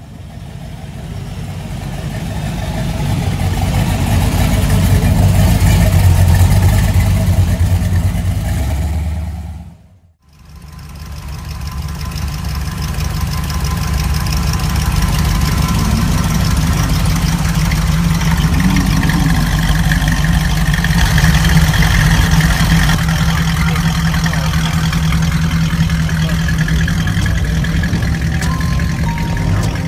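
A hot rod coupe's exposed V8 running at a steady idle with a low rumble while the car creeps along. The sound swells up at the start, cuts out for an instant about a third of the way in, then comes back and holds steady.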